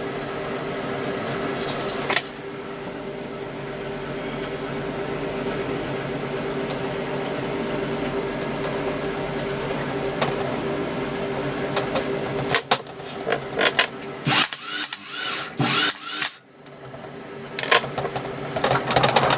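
SIP MIG welder laying a weld: a steady buzzing arc for about twelve seconds, then broken, spluttering bursts of crackle with short gaps as the arc stops and restarts.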